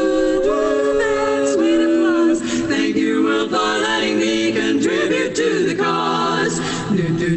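Recording of a women's barbershop quartet singing a cappella in close four-part harmony, with held chords that move into shifting lines.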